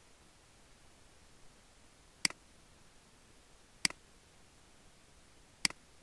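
Three single clicks of a computer mouse, spaced nearly two seconds apart, over a faint steady hiss.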